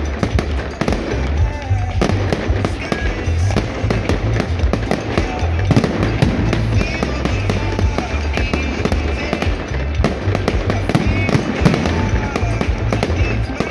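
Fireworks display: a rapid, continuous string of shell bursts and crackles over loud accompanying show music.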